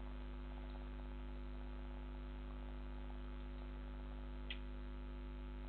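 Steady low electrical mains hum, with a faint click about four and a half seconds in.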